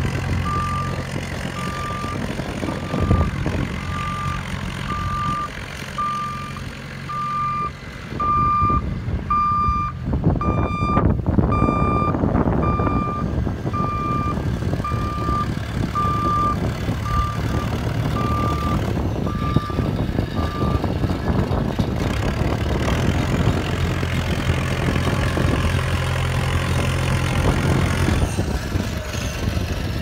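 JCB 1550B loader backhoe's diesel engine running as the machine moves, with its reversing alarm beeping about once a second; the beeping stops about two-thirds of the way through while the engine keeps running.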